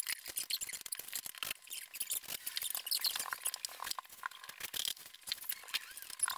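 Sped-up, fast-forwarded room sound of people at work on a DIY build: a rapid, high-pitched jumble of small clicks and squeaks.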